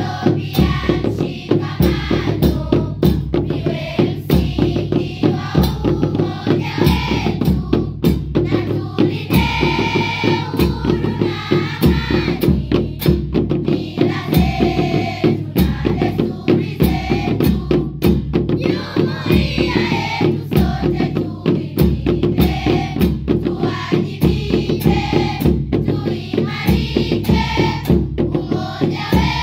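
Music driven by drums: a steady, busy drum beat with deep bass strikes and sharper snare-like hits, with melodic or sung lines over it.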